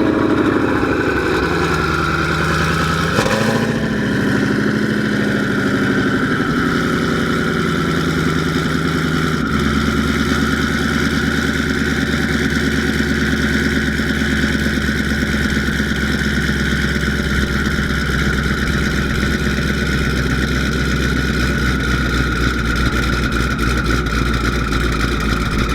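Twin-turbo 5.2-litre V8 of a 2021 Shelby GT500, breathing through a Corsa Xtreme active catback exhaust, idling on a ghost-cam tune. Its revs fall back right at the start, then it settles into a steady idle that shifts in tone about three and again about nine seconds in.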